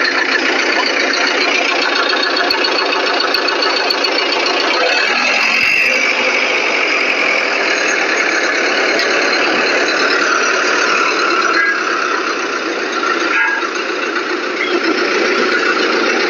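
Hyundai dump truck's diesel engine idling steadily with a dense clatter.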